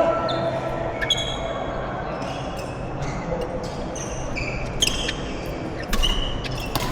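Badminton play on an indoor court: a few sharp racket hits on the shuttlecock spaced a second or more apart, with short high squeaks of court shoes on the floor between them.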